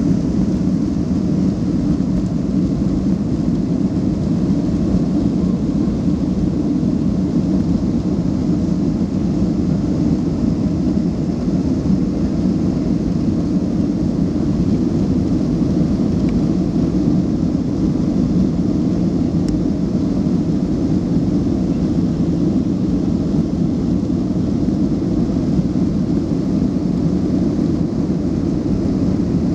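Steady, deep cabin noise of a jet airliner's engines at takeoff power, heard from inside the passenger cabin as the plane lifts off and climbs.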